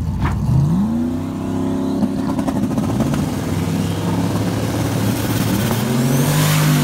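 Drag-racing car engines idling roughly, with one revved up about half a second in, held at a higher speed, and revved again near the end.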